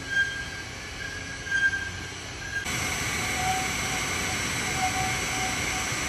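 2004 Toper TKM S30 30-kilo drum coffee roaster running, its drum turned by a roller chain and sprocket: steady machine noise with a short metallic squeak recurring about once a second. The noise gets louder about two and a half seconds in.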